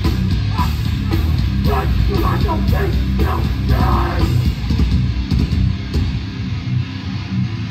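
Hardcore punk band playing live: distorted guitars, bass and drums, with shouting over the band for the first four seconds or so. The deepest bass drops out briefly near the end.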